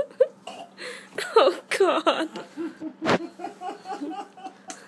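People laughing and chuckling in short, quick bursts, with a single sharp click about three seconds in.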